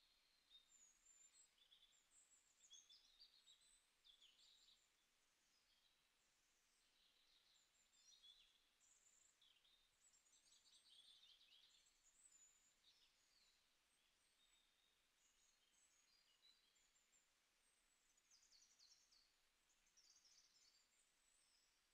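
Near silence, with faint, scattered high chirps of small birds throughout.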